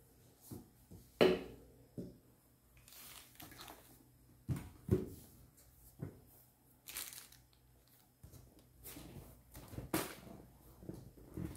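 Unboxing handling noise: packing paper and plastic rustling and crinkling, with dull knocks as a product box and a small tripod are moved about and set down on a table, at irregular moments. A sharper knock comes about a second in.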